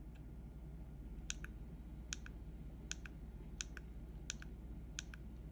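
Small plastic navigation buttons on a handheld Hak5 WiFi Pineapple Pager being pressed repeatedly to scroll through a menu. There are about six presses, each a quick double click of press and release, evenly spaced a little under a second apart, over a low steady hum.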